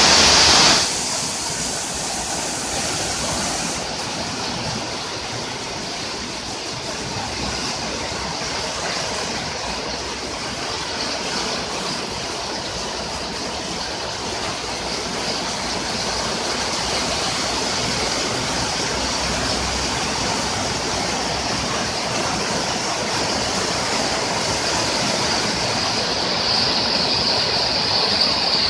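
Steady hiss of heavy monsoon rain falling onto standing floodwater, louder for about the first second.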